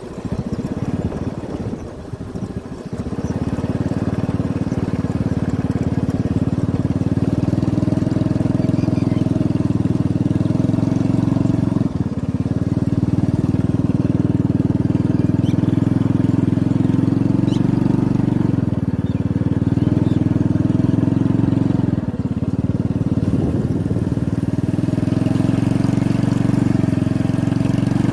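Small vehicle engine running steadily at cruising speed over a rough dirt track, dipping briefly about 12 and 22 seconds in.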